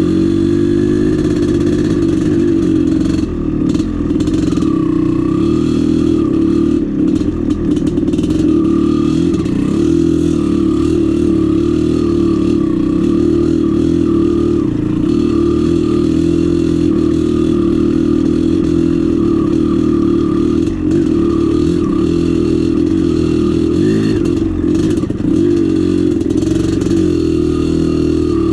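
Dirt bike engine running while riding, its note wavering a little with the throttle.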